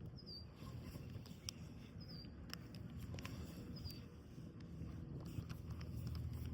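Outdoor ambience: a bird gives a short, high chirp about every two seconds over a low wind rumble on the microphone, with a few faint clicks.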